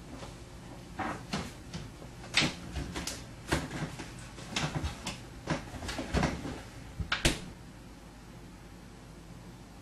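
A string of knocks and clunks, like a fridge's door and shelves being handled, about a dozen over six seconds, ending with two sharp knocks about seven seconds in.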